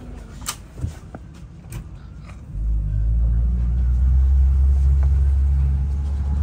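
A few light knocks, then about two and a half seconds in the pontoon boat's motor opens up into a loud, steady low rumble as the boat pulls away from the jetty.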